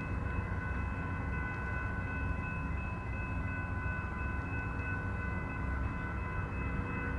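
Amtrak California Zephyr standing at the station with its diesel locomotive idling: a steady low rumble with a steady high-pitched whine over it.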